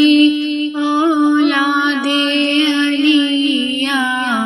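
Ismaili tasbih being chanted: a voice singing the invocation in long, wavering held notes.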